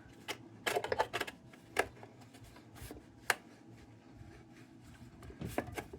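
Scattered light clicks and taps of metal lantern parts being handled and fitted together, with one sharper click about three seconds in.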